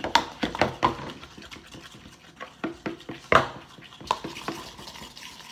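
Spoons stirring glue-and-activator slime in plastic bowls: irregular clicks and scrapes of spoon against bowl, the loudest a little after three seconds in.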